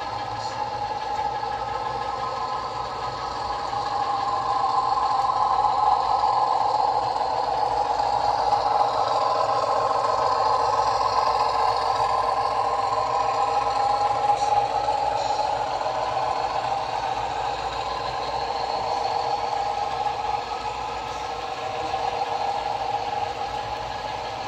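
Model train passing: a sound-equipped diesel locomotive's engine sound runs steadily, its pitch wavering slightly, as the passenger cars roll along the track. It grows louder a few seconds in and eases off toward the end.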